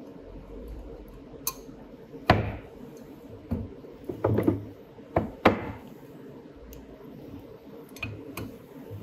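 Metal parts of an antique clothes iron clinking and knocking together as they are handled and fitted by hand: a string of sharp, separate metallic knocks, some with a brief ring, the loudest a little over two seconds in and again about five and a half seconds in.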